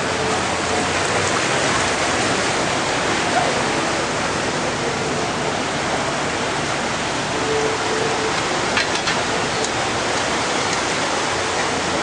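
Steady rushing water noise from flooding or rain, even and unbroken, with a few faint clicks about nine seconds in.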